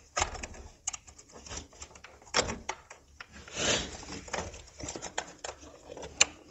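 Gloved hands handling a fuel line and pushing its plastic quick-connect fitting onto a flex-fuel sensor: scattered small clicks and scrapes, a brief rustle around the middle, and one sharp click near the end.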